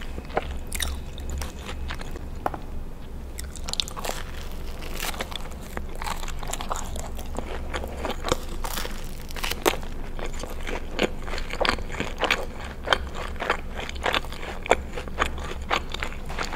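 Close-miked chewing and biting of a soft breadstick dipped in alfredo and marinara sauce: many irregular wet mouth clicks and small crunches, coming thicker in the second half.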